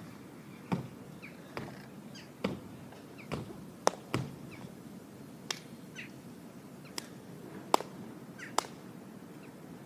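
In-ground trampoline being bounced on: a sharp thump or clank at each landing, about one a second at first, then more spread out.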